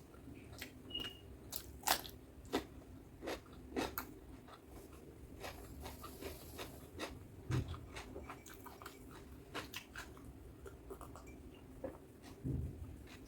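Close-miked chewing and mouth sounds of a person eating butter chicken with rice: irregular clicks and smacks, with a couple of heavier low thumps about halfway and near the end.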